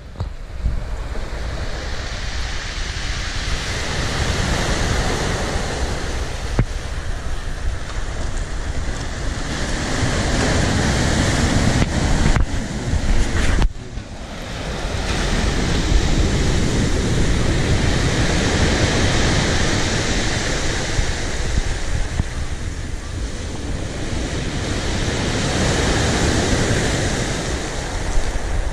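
Sea surf washing in and out in slow swells, with wind rumbling on the microphone. The sound breaks off and picks up again about halfway through.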